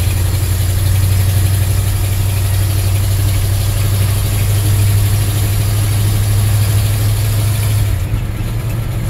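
The 360 V8 of a 1974 Ford F100 pickup running steadily while driving, heard from inside the cab as a low drone. The engine note drops about eight seconds in.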